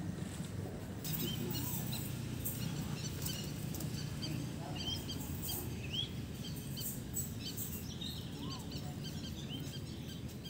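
Small birds chirping: many short, high calls scattered throughout, with a few lower calls, over a steady low background noise.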